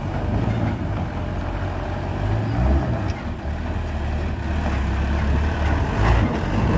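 Light box truck's diesel engine pulling hard up a steep gravel incline, a steady low rumble that grows louder as the truck comes close.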